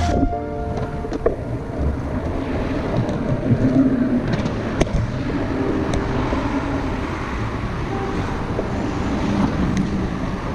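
Wind rushing over the microphone of a moving bicycle, a steady low rush, with one sharp click about halfway through.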